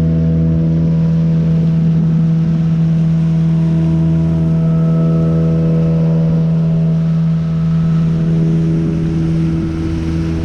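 Boat motor running at a steady speed, a constant engine drone.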